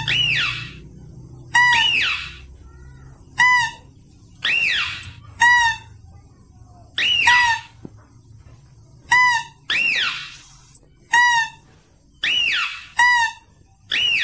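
Mouse-deer (kancil/pelanduk) lure call playing on a loop: short sharp squeaks alternate with whistled squeals that rise and fall, about one call a second. A faint low hum runs underneath.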